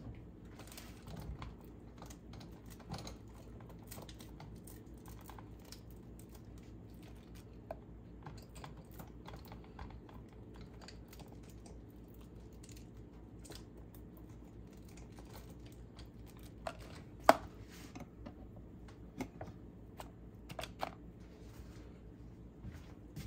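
Hands dropping dried cherries and diced chicken onto lettuce in a plastic food container: scattered light clicks, taps and rustles, with one sharper click about seventeen seconds in, over a steady low hum.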